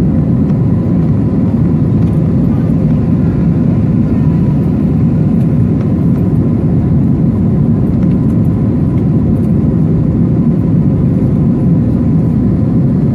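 Steady roar of an airliner's turbofan engines and rushing air, heard inside the passenger cabin as the plane climbs after takeoff, with a faint steady tone under it.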